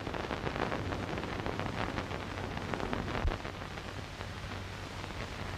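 Hiss and dense crackle of an old optical film soundtrack, over a steady low hum, with a single dull low thud about three seconds in.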